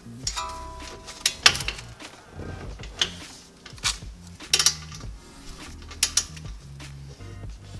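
Torque wrench on the lower brake caliper bracket bolt, working in a series of sharp metallic clicks about a second apart as the bolt is brought to torque.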